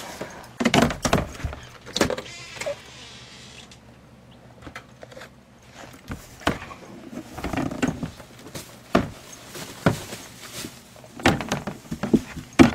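Shredded newspaper rustling and crackling in irregular handfuls as it is lifted out of a shredder bin and dropped in for bedding.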